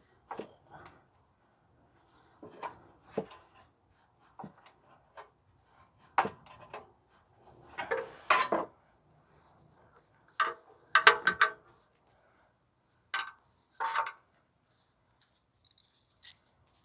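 Irregular metallic clinks and knocks of hand tools on bolts and the exhaust heat shield, with the loudest clatter, a few quick ringing strikes, about eleven seconds in.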